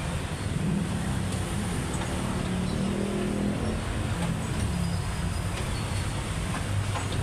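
Steady low rumble of motor vehicle traffic, with an engine hum swelling and fading about halfway through as a vehicle passes.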